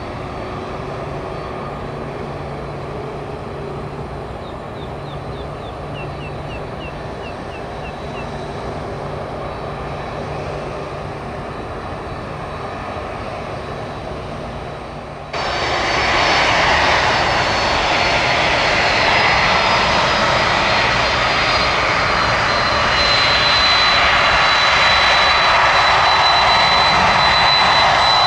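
Jet airliner engines running with a steady low hum. About halfway through the sound jumps suddenly to a much louder rush with a high, steady whine.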